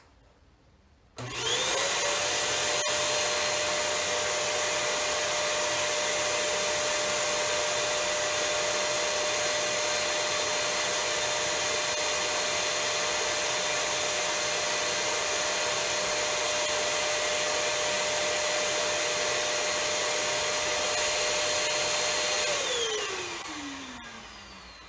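Bissell Hercules Slim Vac commercial stick vacuum switched on at high power about a second in. It spins up quickly to a steady high whine over a rush of air and runs for about twenty seconds. Near the end it is switched off and winds down, the whine falling in pitch.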